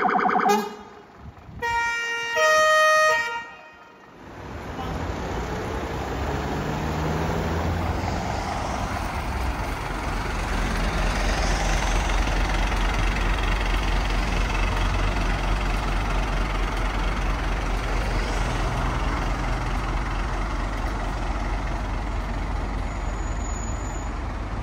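Fire engine sounding short bursts of its emergency warning tones in the first few seconds, loud stepped tones. After that its diesel engine runs steadily with a low rumble.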